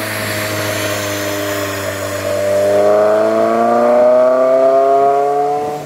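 Honda Civic Type R EP3's K20 four-cylinder engine accelerating hard, its note climbing steadily in pitch and growing louder partway through.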